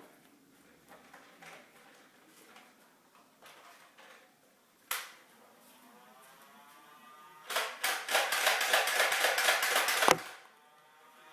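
Nerf N-Strike Elite Stockade toy blaster mechanism: a single sharp click about five seconds in, then a loud, rapid run of plastic clacks lasting about two and a half seconds.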